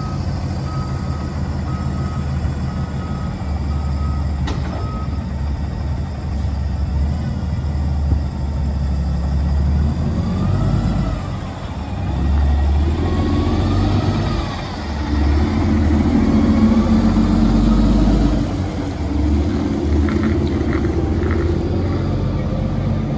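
Heavy tow truck's diesel engine running, with a reversing alarm beeping steadily until about five seconds in. The engine then grows louder from about twelve seconds on as the wrecker pulls the fire department's aerial ladder truck in tow.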